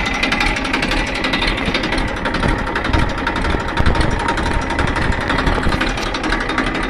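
Massey Ferguson tractor's diesel engine running steadily, with a rapid, even beat.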